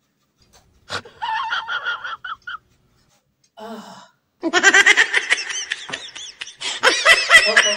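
A woman laughing in short bursts, breaking into longer, louder laughter about halfway through.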